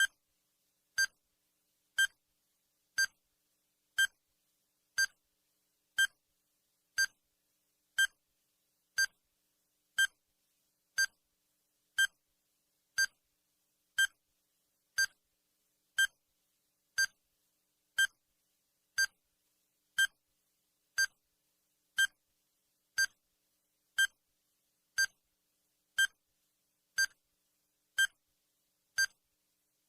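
Countdown timer sound effect: a short, sharp electronic tick once every second, evenly spaced, with silence between ticks.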